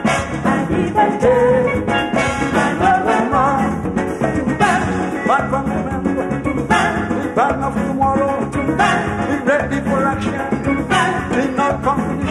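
Live calypso band playing an instrumental break: trombones and trumpets play sliding riffs over a drum kit, bass and guitar keeping a steady beat.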